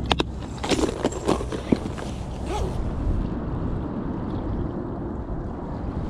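Clicks and rattles of a clear plastic tackle box being handled and opened and a lure taken out, sharpest in the first two seconds. After that there is a steady low rumble.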